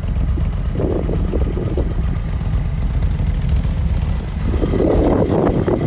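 A vehicle engine running steadily with a low rumble, with two louder noisy passages about a second in and near the end.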